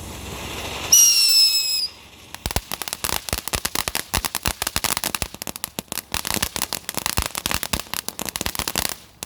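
A hiss builds, then a firework whistles for about a second, falling in pitch. A rapid string of firecrackers follows, popping and crackling for about six seconds.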